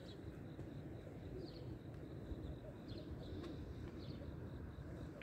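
Crickets chirping faintly, a high chirp repeating at an even rate, with a few louder chirps, over a low steady rumble of surf.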